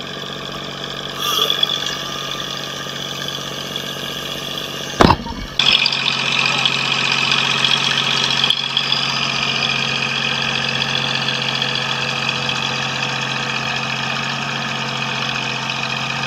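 Fishing boat's engine running steadily under way while trolling, with the hiss of water rushing along the hull. About five seconds in there is a sharp click and a brief dropout, after which the engine and water sound a little louder.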